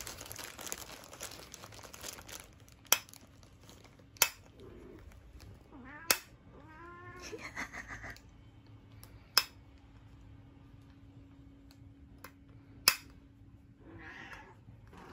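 Plastic bag of dry cat food crinkling for the first couple of seconds, then five sharp, loud clicks a few seconds apart. A domestic cat meows about seven seconds in and again near the end.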